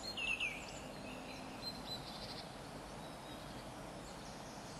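Small birds chirping over a faint, steady outdoor background hiss, with a quick run of falling chirps near the start and fainter calls about two seconds in.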